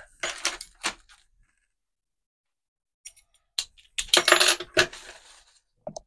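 Metal clinking and clattering as padlocks and lock parts are handled: a short clatter at the start, a few sharp clicks about three seconds in, then a longer jingling clatter around four to five seconds in.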